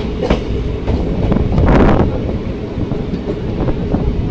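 Passenger train coach running, heard from its window: a steady rumble and rush, with wheels clicking irregularly over rail joints. A short, louder rush of noise comes just under two seconds in.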